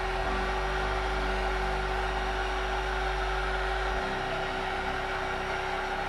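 Heat gun running steadily, a loud even rush of blown air with a steady hum, heating epoxy resin to blow out the white foam into a sea-foam pattern.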